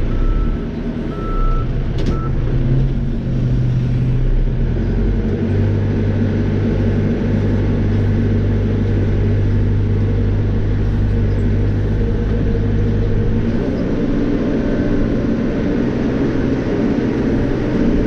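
Caterpillar 430E backhoe loader's diesel engine working under load while digging. Its note changes about five seconds in and again near the end. A reversing alarm beeps for the first two seconds.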